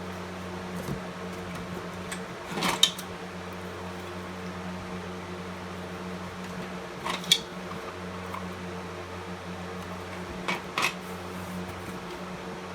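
A steady hum in a small room, with three brief clusters of clicks and knocks, about two and a half, seven and ten and a half seconds in, as hard fire alarm devices are handled and set down during unpacking.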